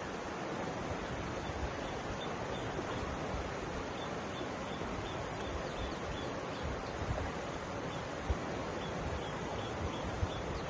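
Mountain river flowing steadily, a constant rushing of water, with occasional low bumps of wind on the microphone. A faint high chirp repeats about twice a second through most of it.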